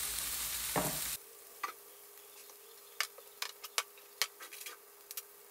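Salmon fillet searing in butter in a frying pan: a steady sizzle for about the first second, then quieter, with scattered sharp pops and crackles from the hot fat.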